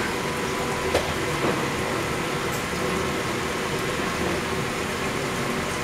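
Steady rushing noise of a commercial kitchen's exhaust hood fan over a lit gas char-grill, with a light knock about a second in.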